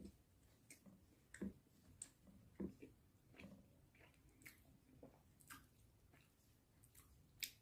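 Faint, intermittent eating sounds: soft chewing and squishy mouth noises with scattered small clicks, a few of them louder, picked up weakly by a faulty microphone.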